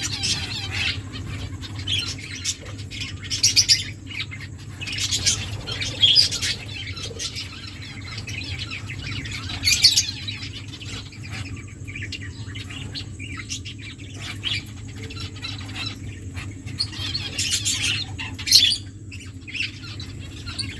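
Aviary finches chirping and calling in scattered bursts, several louder flurries of calls standing out, over a steady low hum.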